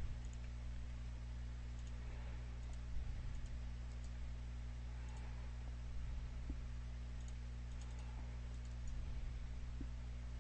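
Faint computer mouse clicks and some keyboard typing over a steady low electrical hum.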